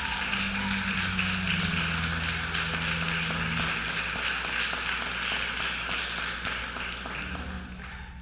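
Church congregation applauding, a dense patter of many hands clapping that eases off near the end.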